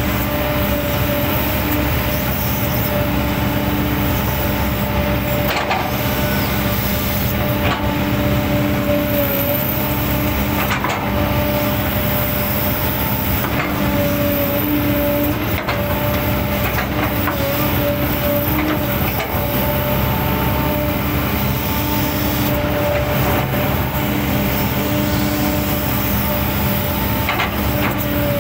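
Diesel engine and hydraulic system of a 20-ton-class excavator running steadily under load, with a whine that swells and fades as the boom and bucket move. Several sharp cracks come through as the bucket chops and breaks up an old oil palm trunk for replanting.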